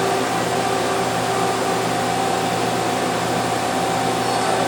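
Mazak QT Nexus 300 CNC lathe powered up and idling: a steady machine hum with a steady high whine over it.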